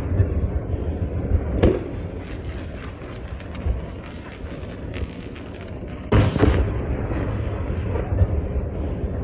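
Aerial firework shells bursting: two loud booms, about 1.6 and 6 seconds in, with a rolling low rumble and scattered crackling between them.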